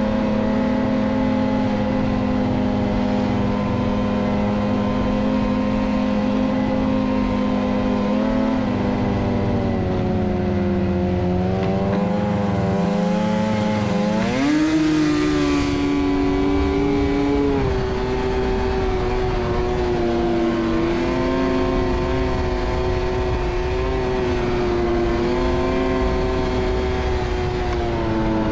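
Snowmobile engine running at speed on a trail, a steady note that eases off briefly and then climbs sharply about halfway through as the sled accelerates.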